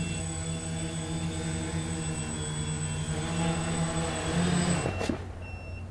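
Quadcopter's electric motors and propellers running with a steady buzzing hum that cuts off suddenly with a knock about five seconds in, as the craft comes down onto the ground.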